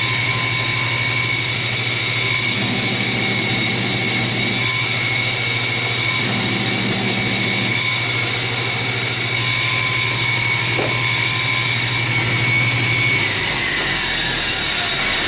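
Grinder running with a steady motor hum, a high whine and a hiss, as a vise jaw insert is held to the wheel for a spark test; the sound of grinding thickens twice for a couple of seconds. About 13 s in the motor is switched off and the whine falls as it spins down.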